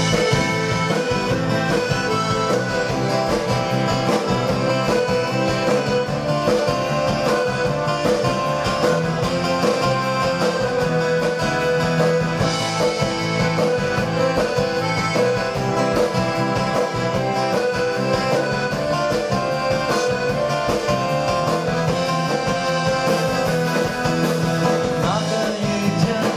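Folk band playing live: accordion over strummed acoustic guitars and electric bass, an instrumental passage before the vocals come in.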